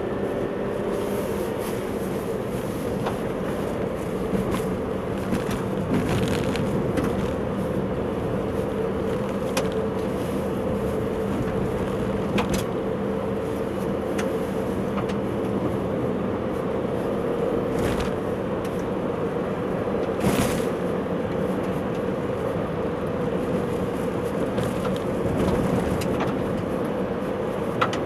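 Car driving on a gravel road, heard from inside: steady tyre and engine noise with a low hum, and scattered short clicks and knocks, the sharpest about twenty seconds in.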